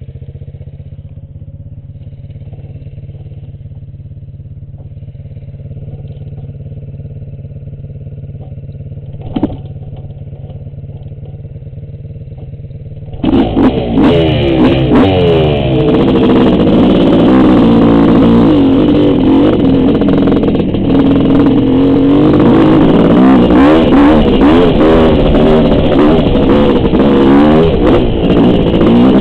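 Dirt bike engine idling steadily, with a single click about nine seconds in. About thirteen seconds in it is suddenly throttled up hard and revs loudly as the bike rides off, its pitch repeatedly rising and falling with the throttle.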